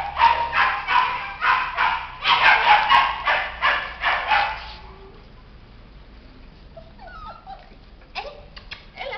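A dog barking in a quick series, about three barks a second, stopping about five seconds in; after that only a few faint short sounds.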